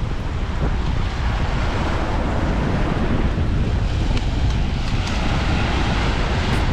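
Steady wind rumbling on the microphone outdoors, with no break through the whole stretch.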